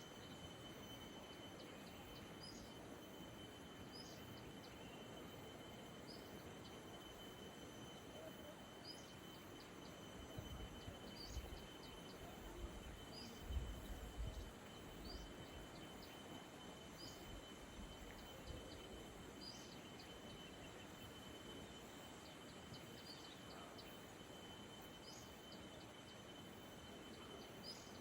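Faint rural outdoor ambience: a steady hiss with a thin high tone, and short high chirps repeating every second or two, like a small bird or insect calling. A few low rumbles come and go near the middle.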